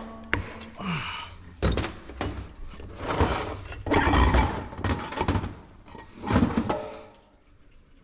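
Metal parts of an automatic transmission being handled during a teardown: several sharp knocks and clanks, with stretches of scraping in between.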